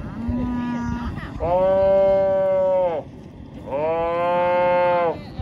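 Calf bawling: a short, softer call at the start, then two loud, long bawls, each about a second and a half, dropping in pitch as each one ends.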